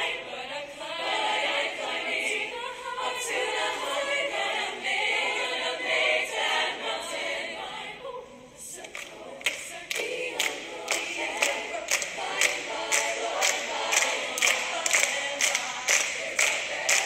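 Choir singing a cappella. A little past halfway the voices briefly thin out, then a steady beat of sharp percussive clicks, about two a second, joins the singing.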